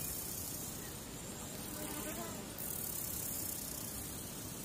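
Steady hiss and low rumble of an idle live-stream audio feed, with a faint, brief sound about two seconds in.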